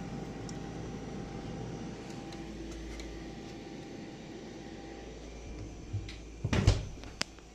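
Steady low hum, then about six seconds in a few knocks and a thump, with a sharp click just after: a refrigerator door or compartment being handled and shut.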